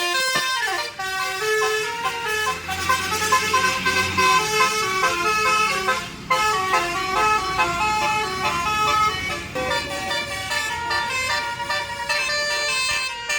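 Basuri telolet multi-tone bus horn, sounded through top-mounted trumpets, playing a tune of stepping notes, with a short break about six seconds in. A low rumble runs underneath through the first part.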